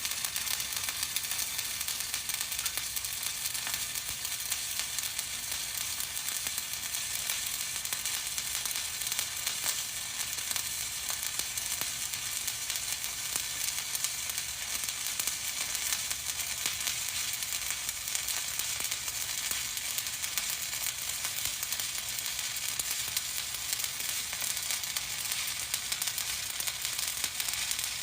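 Stick (shielded metal arc) welding: the electrode's arc burning steadily with a continuous crackling sizzle as a stringer bead is run over the hot pass.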